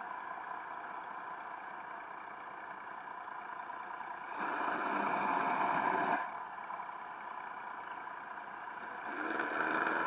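Steady mechanical hum of a boat's motor heard underwater. It swells louder for about two seconds around the middle and rises again near the end.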